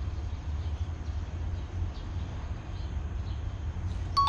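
Steady low rumble of traffic on the highway overpass overhead, with faint bird chirps. Near the end a sudden bright 'ding' chime sound effect rings out, marking a fish bite.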